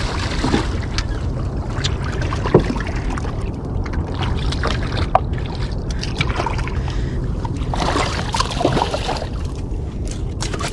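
Steady wind rumble on the microphone with water sloshing and trickling, broken by scattered clicks and knocks (the loudest about two and a half seconds in) and a short rush of splashing near the end.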